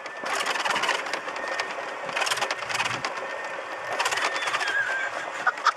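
Golf cart rolling along a gravelly cart path: a crackling crunch of the tyres over grit together with the cart's rattling, swelling and easing off several times.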